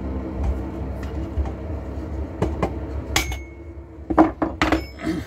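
Metal hand tools and loose engine parts clinking and knocking against the MBK 51 moped engine's crankcase on the workbench as it is taken apart. There are a few sharp clicks, then a closer run of clanks near the end, one with a short metallic ring, over a low steady hum.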